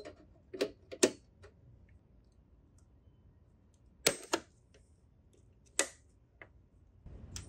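Sharp metallic clicks and taps, about six spread out in pairs and singles, as the tension spring on a Honda mower's blade clutch is pried and unhooked from its bracket with a hand tool.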